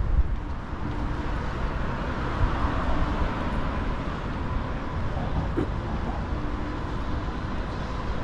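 Road traffic passing on the bridge roadway: a steady rumble of vehicles.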